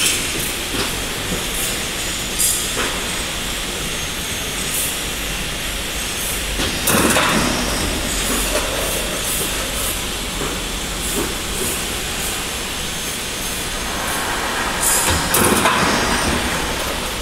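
IBR roof panel roll forming machine running: a steady mechanical drone with the steel sheet rubbing and scraping through the forming rollers, the scraping louder about seven seconds in and again near the end.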